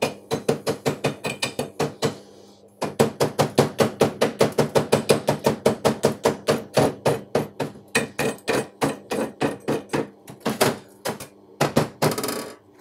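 Welder's chipping hammer rapidly tapping slag off a freshly laid stick-weld bead, several sharp metal strikes a second, with a short pause about two seconds in and a brief scrape near the end.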